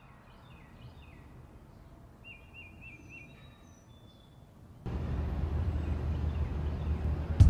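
Small birds chirping over quiet outdoor ambience, with a quick run of repeated chirps near the middle. About five seconds in, a louder, steady outdoor background noise with a low rumble takes over.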